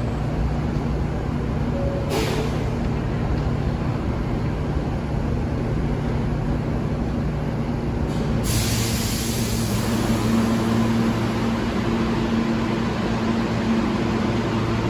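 R160 subway train in the station: a steady rumble with a low motor hum. There is a short hiss of air about two seconds in, and a louder rushing hiss starts about eight seconds in and continues.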